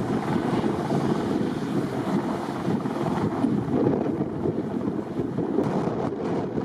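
Strong wind buffeting the microphone in steady gusts, a low rumbling rush.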